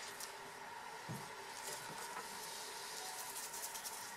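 Quiet room tone: a steady faint hum over light hiss, with a soft bump about a second in and a few faint ticks.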